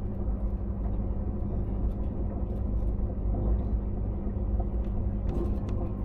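Steady low rumble of a moving vehicle, with a constant hum and a few faint clicks.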